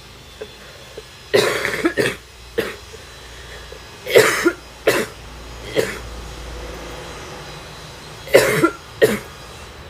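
A young woman's mild, wet, barking smoker's cough: about eight coughs in three short fits a few seconds apart.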